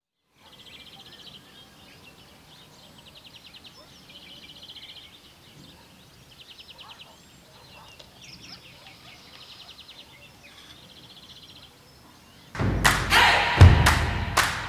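Insects trilling in repeated high buzzy bursts about a second long, over a faint outdoor ambience. About two seconds before the end, loud percussive drum hits cut in.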